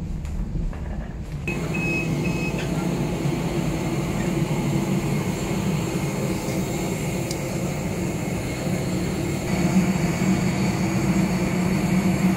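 Steady drone of aircraft and ramp machinery at the gate, heard from the jet bridge beside the airliner's fuselage. It grows louder about a second in, with a few short high beeps about two seconds in.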